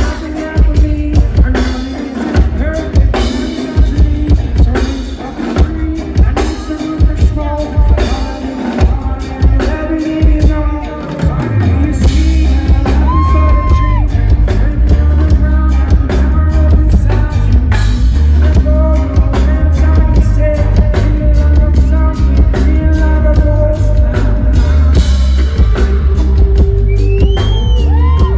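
Live reggae band playing amplified, with a sung melody over drums and a heavy bass line. About twelve seconds in, the bass turns from separate pulses into a steady, deep line.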